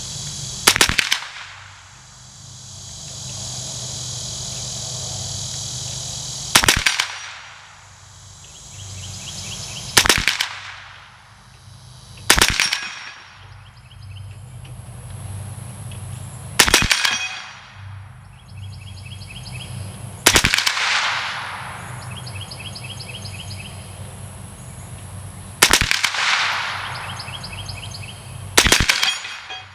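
Single shots from an AR-15 rifle fitted with a CMMG .22 LR conversion kit, eight sharp cracks spaced a few seconds apart, each trailing off in a short echo.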